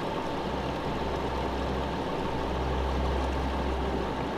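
Off-road vehicle engine idling with a steady low hum.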